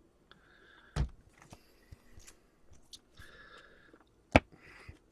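Two sharp taps, the louder one near the end, with soft rustling between them: trading cards and their packaging being handled.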